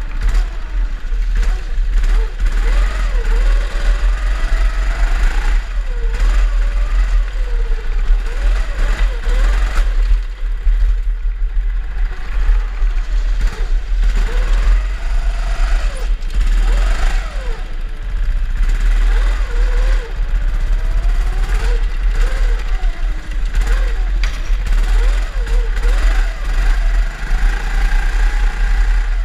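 Drift kart motors running, their pitch rising and falling over and over as the karts speed up and slow down, over a constant deep rumble.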